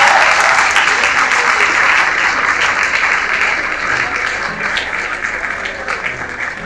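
Audience clapping in a hall, dense at first and gradually dying away.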